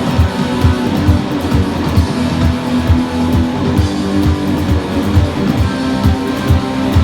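Electric guitar, a Yamaha SG-510 through effects pedals, playing over a backing track with a steady drum beat.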